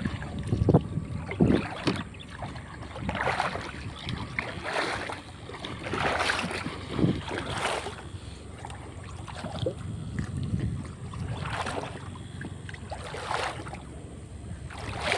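Shallow water splashing and sloshing in repeated swishes, about one every one to two seconds, with a couple of sharper splashes about a second in.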